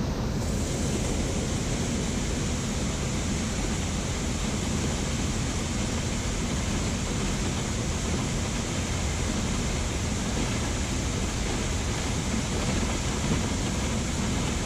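Water pouring down a dam spillway: a steady, unbroken rush of falling water.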